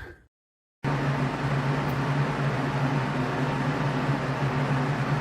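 A steady mechanical drone with a constant low hum, starting abruptly about a second in after a moment of dead silence.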